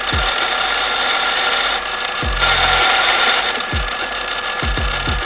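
Drill press running as a twist drill cuts into a thick steel plate, a steady motor and cutting whine that grows louder for about a second midway. Several low thuds that fall in pitch come at uneven intervals.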